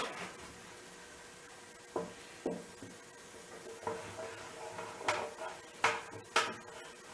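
Wooden dowel being test-fitted into drilled holes in a cedar table top: a sharp knock at the start, then a handful of lighter wooden knocks and taps, most of them in the second half.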